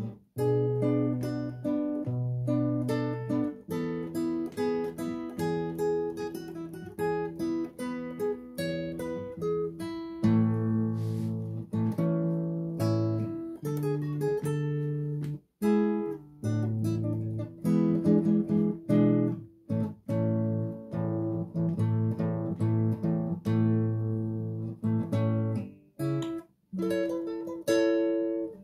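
Solo nylon-string classical guitar played fingerstyle: a plucked melody over held bass notes, with a couple of short pauses between phrases.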